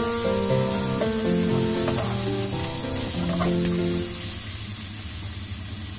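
Diced red onion sizzling in hot oil in a nonstick wok, stirred with a slotted spatula. Background music plays over it and fades out about four seconds in.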